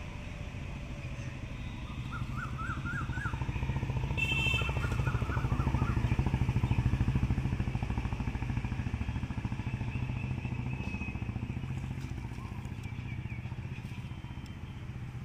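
A passing motor vehicle's engine, growing louder to a peak about halfway through and then fading. Birds give short chirping trills in the first few seconds.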